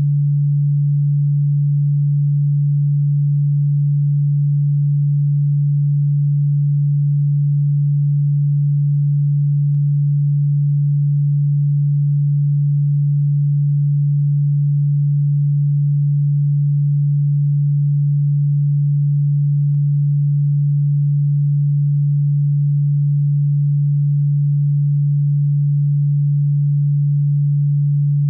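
Electronically generated steady pure tone, low in pitch and unchanging, played as a cockroach and ground-bug repellent sound.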